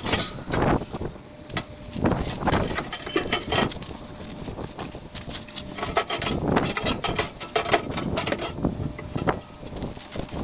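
Steel parts of a smoker cabinet being handled and set back into place: irregular metal clanks, knocks and scrapes.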